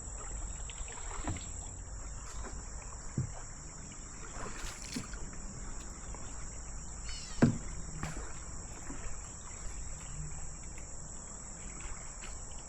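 Steady high-pitched insect chorus, with a few light knocks from the kayak and paddle; the loudest knock is about seven and a half seconds in.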